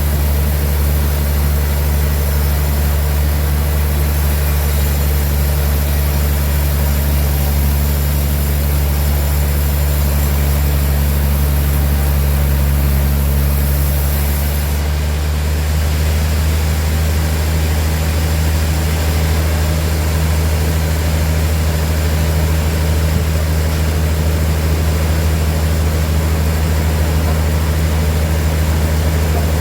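Sawmill machinery running steadily with a loud, low engine-like hum. A high hiss stops suddenly about halfway through, and the hum shifts slightly in pitch.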